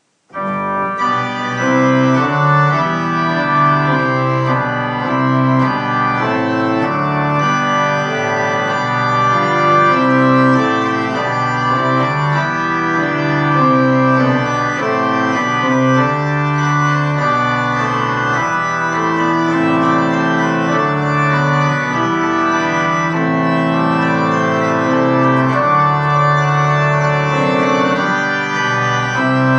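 Instrumental keyboard music in slow, held chords, each note sustained steadily for a second or two.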